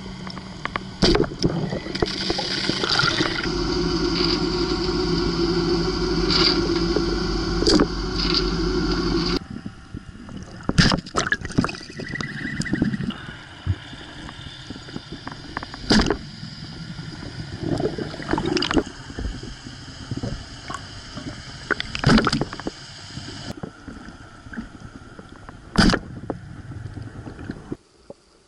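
Underwater sound of a boat engine: a steady drone heard through the water, with sharp clicks and knocks every few seconds. The drone shifts abruptly about nine seconds in and again near the end.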